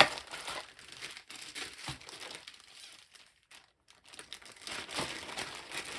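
Plastic packaging crinkling as it is handled, in irregular bursts with a short lull about halfway through. A sharp click at the very start is the loudest sound.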